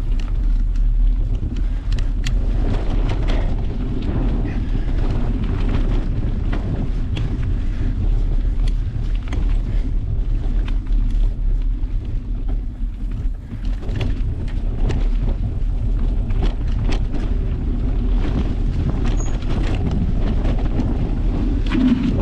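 Wind buffeting a GoPro's microphone while riding a mountain bike down a dirt trail: a steady low rumble with frequent small clicks, knocks and rattles from the bike going over rough, rocky ground.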